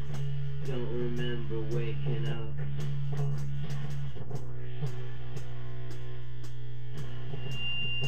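Instrumental jam music: a sustained low bass drone under short plucked guitar-like melody notes, with a steady tick about three times a second keeping the beat. The bass drone drops out of its upper note about four seconds in, leaving a lower one.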